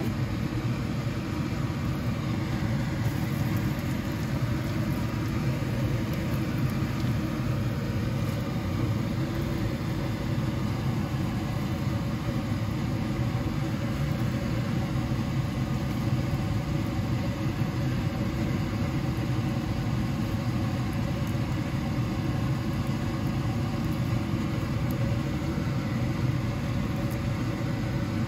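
Steady whirring hum of a kitchen appliance's fan motor, running evenly with no change.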